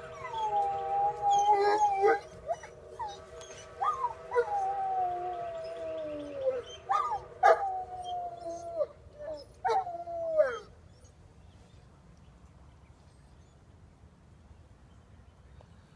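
Distant steam locomotive whistle sounding a multi-note chord: one long blast, then two shorter ones, each sagging in pitch as it dies away. A dog howls along with it, its wavering howls rising and falling above the whistle's chord. Both stop about ten and a half seconds in.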